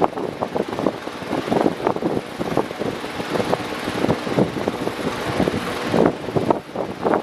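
Electric fan running continuously, its airflow giving a rushing sound with a rapid, uneven flutter.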